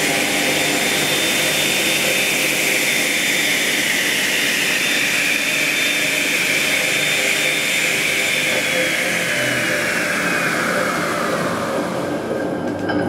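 Wadkin circular dimension saw running with a steady high whine, then spinning down: over the last five seconds the whine falls steadily in pitch as the blade slows.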